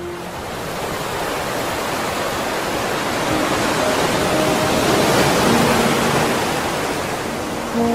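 Surf washing onto a sandy beach: a steady rush of breaking waves that swells slowly and eases again, with soft music tones coming in partway through.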